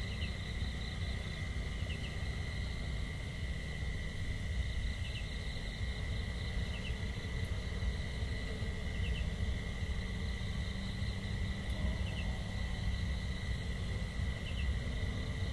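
Outdoor ambience: a steady low rumble under a constant high drone, with short double chirps every couple of seconds.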